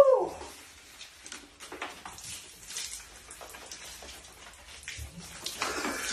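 Water splashing and dripping into a bathroom sink as a man rinses his hair under water spilling from bottles taped to his back. A short cry from the man, falling in pitch, opens it; the splashing grows denser near the end.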